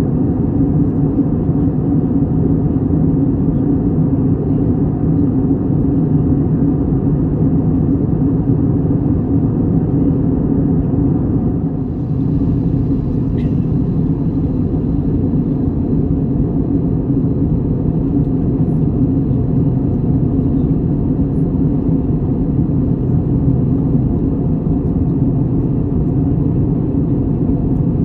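Steady low engine drone with a constant hum, loud and unchanging throughout.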